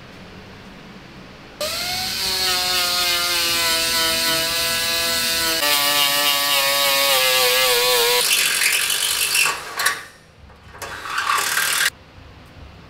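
Angle grinder spinning up with a rising whine about a second and a half in, then grinding paint off steel armour plate down to bare metal, its motor pitch sagging and wavering under load. It goes over to harsher grinding in short bursts and stops abruptly near the end.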